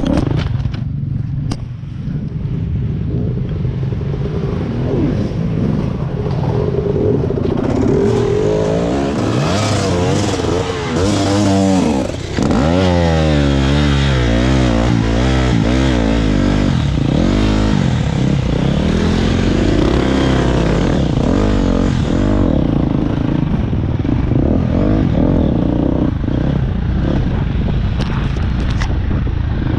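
Engine of a ridden vehicle running steadily. From about eight seconds in to about twenty-two seconds its pitch rises and falls quickly and repeatedly under a strong rush of wind.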